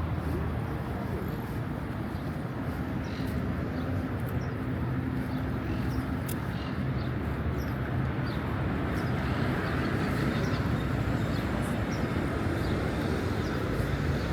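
Outdoor city street ambience: a steady low hum of traffic, with a few faint high chirps and ticks scattered through it.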